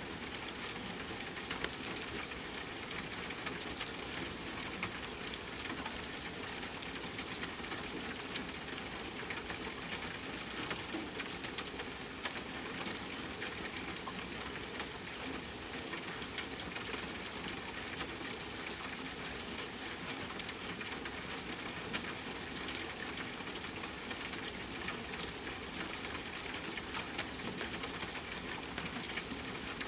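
Steady rain mixed with a crackling wood fire: a continuous hiss of rainfall dotted with small pops and snaps, with a couple of louder pops about three-quarters of the way in.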